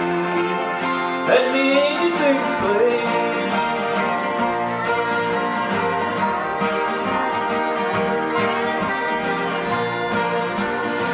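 An acoustic country-gospel band playing an instrumental break: several acoustic guitars strumming steadily, with a lead melody line that slides in pitch during the first few seconds.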